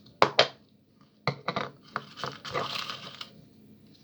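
Quick knocks and clinks as the prompts are stirred around in their container, followed about two and a half seconds in by a short rustle as one is drawn out and opened.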